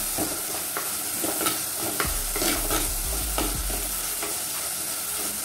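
Onions, garlic and dried red chillies frying in oil in a clay pot, sizzling steadily, while a steel ladle stirs them with irregular scrapes and knocks against the pot.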